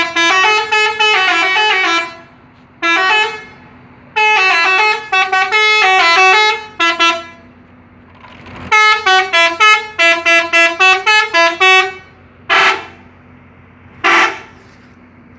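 A coach's telolet musical horn playing quick multi-note tunes in four bursts, the notes stepping up and down several times a second, over a steady low hum. Near the end come two short, noisy single blasts.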